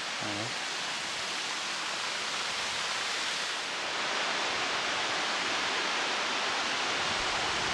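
Steady rushing noise of a waterfall, growing a little louder about four seconds in.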